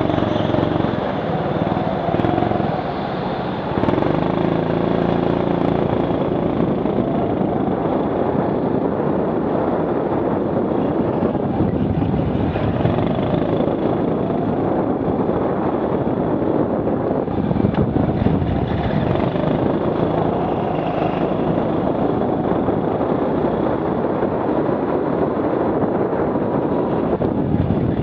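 Rental go-kart driving at speed, its drive note rising and falling as it brakes and accelerates through the corners, louder from about four seconds in.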